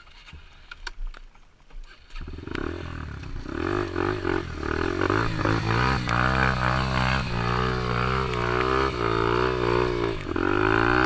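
Yamaha TT-R125 dirt bike's single-cylinder four-stroke engine comes in about two seconds in and runs loudly, its revs rising and falling. A few light clicks come before it.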